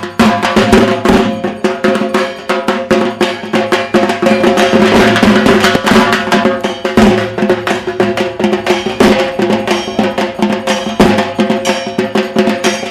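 Music with a busy, driving drum beat over sustained melodic tones.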